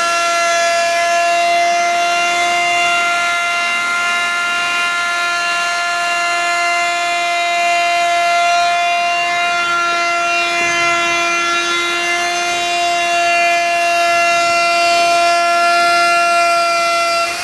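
Handheld electric router running at full speed and cutting along the edge of a white board, throwing chips. It makes a loud, steady, high-pitched whine of several tones.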